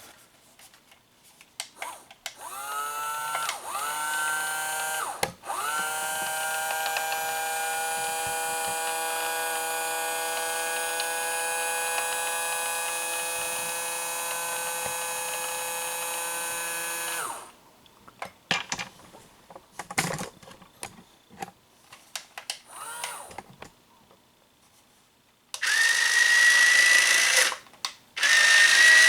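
Small electric drive motors and reduction gearboxes of a 1/12-scale Hobby Engine RC track loader whining: two short spin-ups, then a steady whine at one pitch for about twelve seconds that cuts off suddenly, as the all-or-nothing rocker-switch controls give only full speed. After some scattered clicks, a louder, higher-pitched whine starts near the end.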